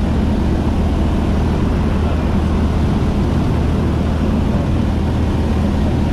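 Steady drone of a Maule light airplane's piston engine and propeller with rushing airflow, heard from inside the cockpit.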